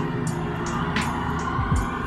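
Music with a steady beat: regular hi-hat ticks over deep bass drum hits that slide down in pitch.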